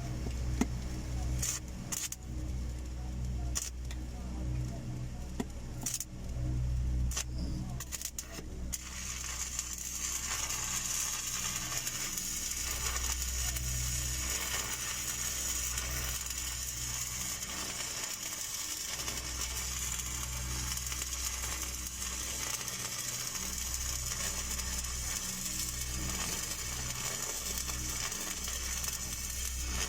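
Stick (SMAW) welding arc on steel pipe: a few sharp clicks, then about nine seconds in a steady crackling hiss as the arc runs a downhill bead, over a low machine hum.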